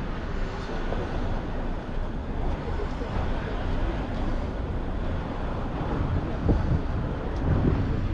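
Street traffic noise with wind buffeting the microphone: a steady low rumble.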